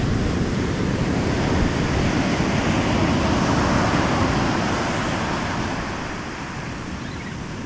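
Surf washing and breaking on a sandy beach, with wind buffeting the microphone. The rush eases off over the last two seconds or so.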